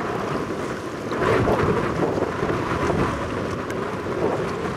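Strong wind rushing over the microphone, with choppy waves splashing around a small boat.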